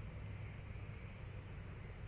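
Airplane drone: a steady low hum under an even hiss, unchanging throughout.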